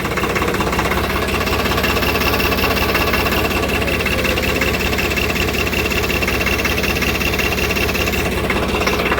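Vehicle engine idling with a bolt-on turbo whistle fitted in its exhaust silencer, giving a steady high whistle over the fast, even pulsing of the engine.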